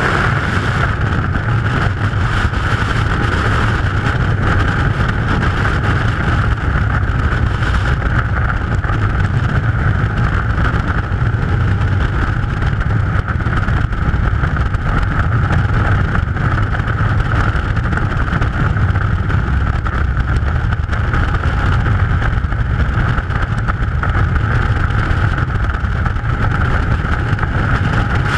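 Loud, steady wind noise on a helmet-mounted camera's microphone from air rushing past a skydiver, an unbroken rush with no distinct events.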